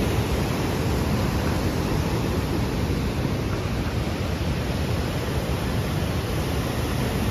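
Fast mountain river rushing over boulders: a steady, even roar of whitewater.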